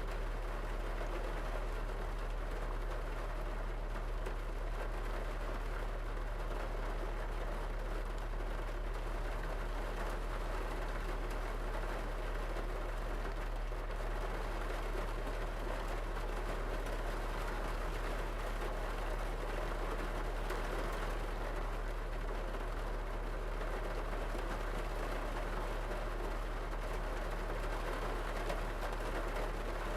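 Steady rain falling on a car's roof and windows, heard from inside the car, over a constant low hum.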